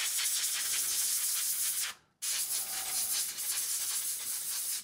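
A nylon-bristle brush wet with alcohol scrubbing a circuit board, a fast raspy rubbing in two spells with a short break about two seconds in: flux being scrubbed off freshly soldered joints.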